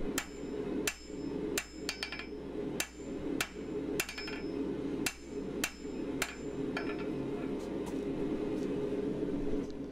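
Hand hammer striking red-hot 3/8-inch square steel bar on an anvil, about one and a half blows a second, each with a short metallic ring, as the bar is rolled and drawn out to a taper. The blows stop about seven seconds in.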